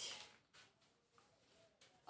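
Near silence, with a few faint, short chalk scratches as numbers are written on a blackboard.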